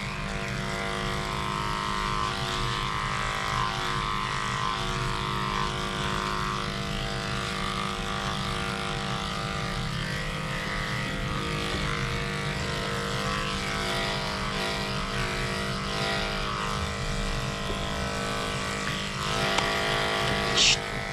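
Cordless electric dog-grooming clipper running with a steady hum as it trims a dog's coat. A brief sharp high-pitched sound comes near the end.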